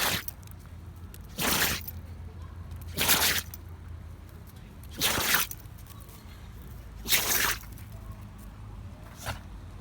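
Kishu dog sneezing again and again, a short burst of air about every two seconds, the last one fainter.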